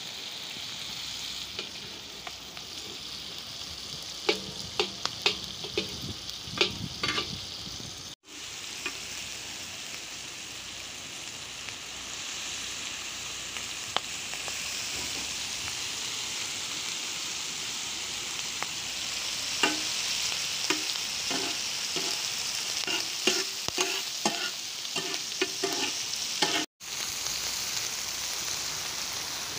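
Chicken with onion and tomato sizzling steadily on a large iron tawa, with a metal spatula scraping and clinking against the pan now and then while it is stirred. The sound cuts out for a moment twice.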